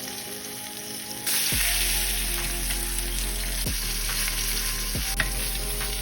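Steak searing in butter in a hot frying pan, a steady sizzle that grows louder about a second in.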